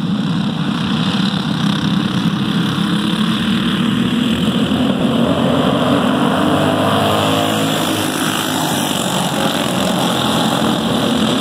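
A pack of dirt-track racing karts running their small engines as they circle the oval, the engine note shifting up and down about midway through.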